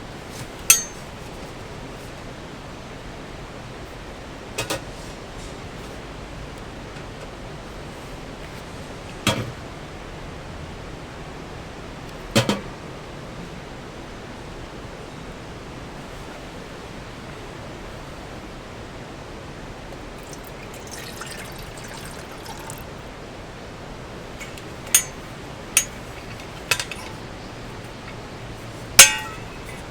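Steady rush of a nearby mountain stream, with a sharp knock or clink every few seconds, several close together near the end.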